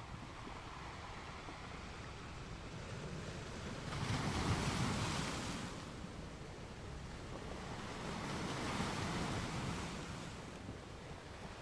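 Ocean waves washing in: a steady surf hiss with two louder surges, one about four seconds in and another near eight to ten seconds, each rising and falling away.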